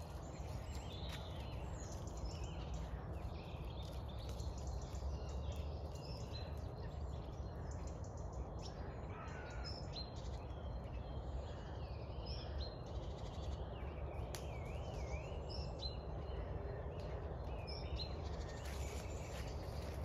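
Woodland birds singing and calling in a dawn chorus, with many short whistled phrases and warbles overlapping, over a steady low rumble.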